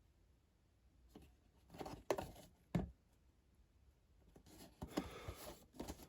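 Light handling noises: scattered small clicks and taps, two firmer knocks about two seconds in, then a stretch of soft rustling from about four and a half seconds.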